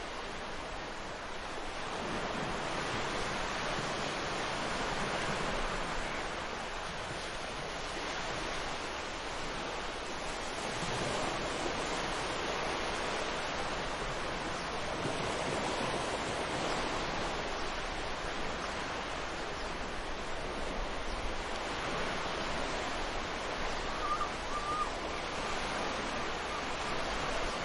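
Ocean waves washing on a shore: a steady rush that swells and eases every few seconds, with a brief bird chirp near the end.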